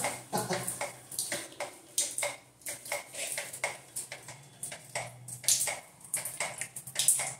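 Irregular small clicks, knocks and splashes of bathroom water play around a plastic bath toy, over a steady low hum.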